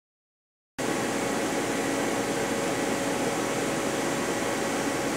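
Steady hum and hiss of machine-shop ambience with a few faint steady tones in it, starting suddenly about a second in after silence.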